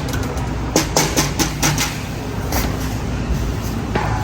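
Car running with a steady low road and engine rumble heard from inside the cabin, with a few short clicks and knocks about a second in and again near the end.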